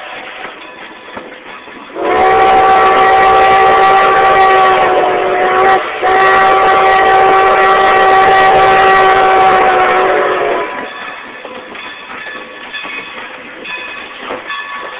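Steam whistle of Baldwin 2-10-0 No. 90 sounding a chord for a grade crossing: one long blast from about two seconds in, broken briefly near six seconds, then held until about ten and a half seconds. After it come the train's running noise and the clicking of wheels over rail joints.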